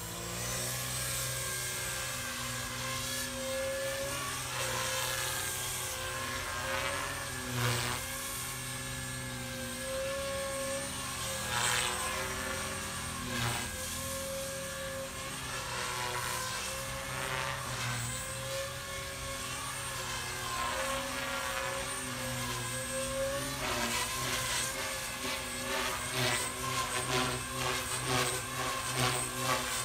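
JR Forza 450 radio-controlled helicopter flying overhead: a steady whine from its motor and rotor, dipping briefly in pitch several times as it manoeuvres, and turning choppier and more pulsing in the last few seconds.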